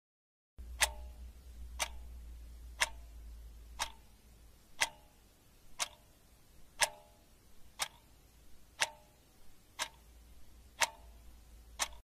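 Clock ticking once a second, about a dozen sharp ticks over a faint low hum.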